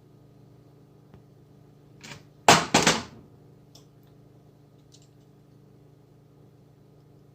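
Small parts of a fuel tank selector valve being handled while a tiny C-clip is worked off its spring-loaded shuttle: a few light clicks, and a short, loud scraping burst in two quick parts about two and a half seconds in.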